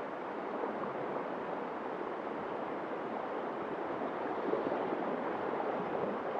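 A stream running high, a steady rush of water with no distinct events.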